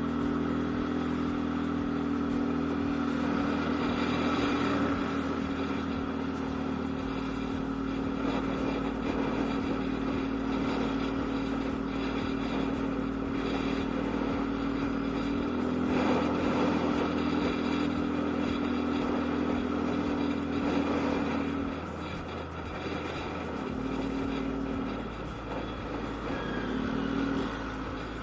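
Yamaha Aerox scooter engine running at a steady pitch under way. It drops off about three-quarters of the way through, then gives two short bursts of throttle near the end.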